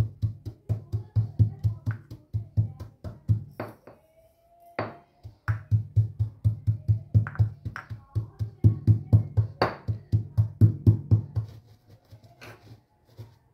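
Stone pestle pounding dried pomegranate seeds in a stone mortar to crush them coarsely: a fast, even run of dull thumps, about five a second. The pounding breaks off briefly about four seconds in and again near the end.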